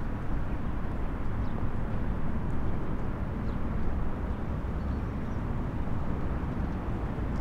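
Outdoor ambience: a steady low rumble of wind buffeting the camera microphone.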